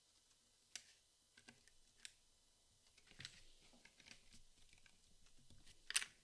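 Cardboard jigsaw puzzle pieces being handled and pressed into place: scattered soft clicks and taps, with one louder click near the end.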